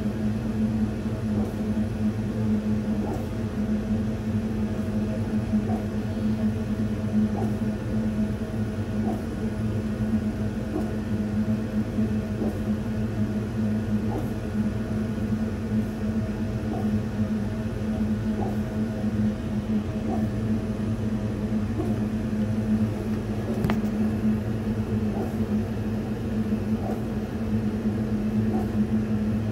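Laser cutter running a cutting job on birch plywood: a steady low hum from the machine's fans and air-assist pump, with faint ticks about once a second.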